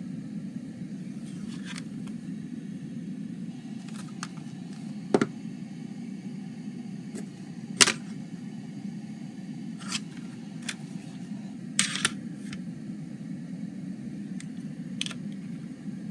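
Plastic CD jewel case being handled, picked up, turned over and opened: scattered sharp plastic clicks and taps, the loudest about five and eight seconds in and a quick double click about twelve seconds in, over a steady low background hum.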